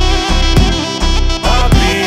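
Background music with a steady beat and a sustained wind-instrument melody.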